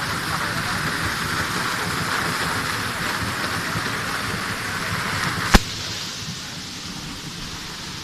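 Waterfall rushing steadily. A single sharp click sounds about five and a half seconds in, after which the rush is somewhat quieter.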